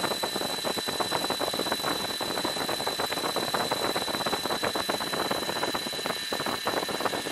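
Electric-powered Roban EC130 800-size scale RC helicopter running on the ground with its rotors turning: a fast, even rotor beat over a steady high whine.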